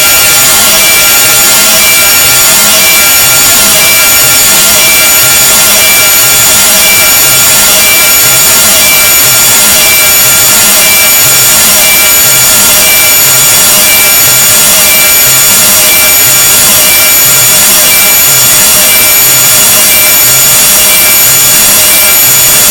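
Harsh noise sound effect at full volume: a dense, unbroken hiss across every pitch with thin, steady shrill tones over it and a faint low pulsing underneath.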